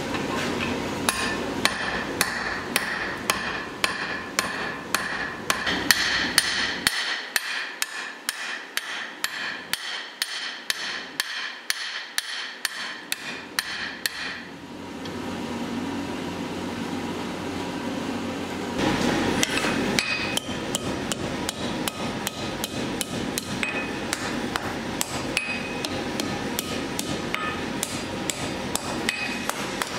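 Blacksmith's hammer striking hot steel on an anvil in a steady rhythm, about two to three blows a second, with a ringing note after each blow. The blows stop for a few seconds about halfway through, leaving a steady rushing noise, then start again.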